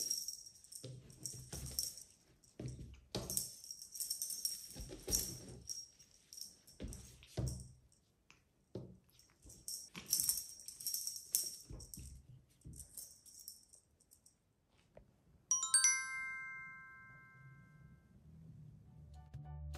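Feather wand cat toy jingling in bursts as a cat bats and pounces at it, with soft knocks of paws landing on a cloth-covered table. About three-quarters of the way through, a single bright chime rings out and fades.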